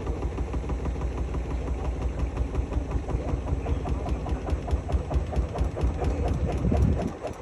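Hotpoint-Ariston Aqualtis washing machine running, its drum giving a steady, pulsing rumble and vibration. The rumble cuts off sharply about seven seconds in.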